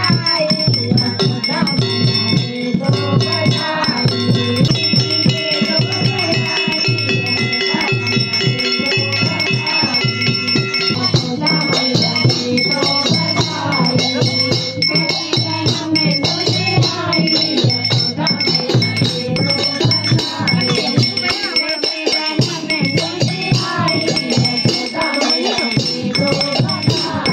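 Devotional folk music: a dholak drum keeping a steady beat, with jingling metal percussion and voices singing. Ringing bell tones sound over the first half and fade out about halfway through.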